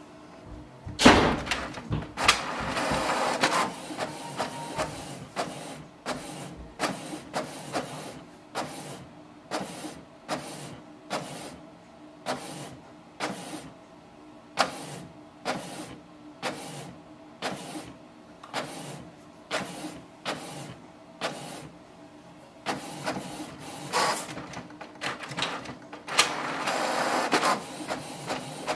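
Canon Pixma TR7620a inkjet printer printing a page. A loud mechanical start comes about a second in as the paper is drawn in. Then the print head sweeps back and forth in short, regular strokes, about one and a half a second, with a longer run of the mechanism near the end as the sheet feeds out.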